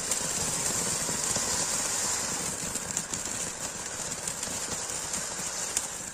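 Anar (flower-pot) fireworks fountains spraying sparks with a steady hissing rush and a few faint crackles, easing off near the end.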